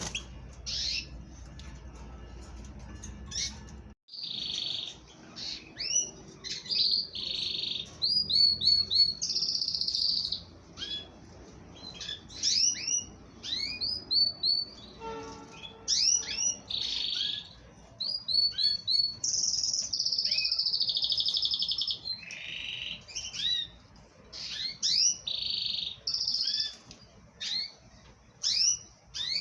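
Domestic canary song: runs of quick upward-sweeping notes alternating with long, fast trills. A low hum under the first few seconds stops abruptly about four seconds in.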